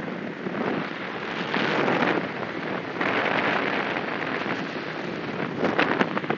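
Slipstream wind rushing through the open window of a Piper Cherokee light aircraft in flight, buffeting the microphone, swelling about a second and a half in and again around three seconds, with a rapid flutter near the end as the paper bag is pushed into the opening.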